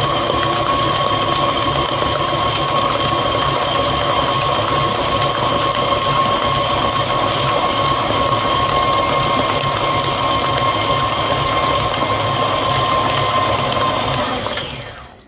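KitchenAid stand mixer running steadily, its flat beater turning through thick creamed butter, sugar and egg batter. The motor's hum, with a high whine, winds down and stops near the end.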